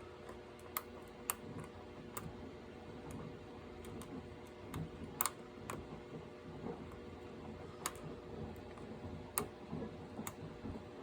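Hook pick and tension wrench working the pin stack of a lock: scattered, irregular small metal clicks and taps, with the loudest about five seconds in. A steady faint hum of household machinery runs underneath.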